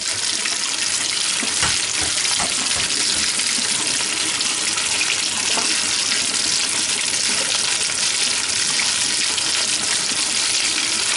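Kitchen tap running steadily, the stream splashing into a plastic colander and over hard-boiled eggs being peeled in a stainless steel sink, with a few light knocks of the eggs and shells being handled.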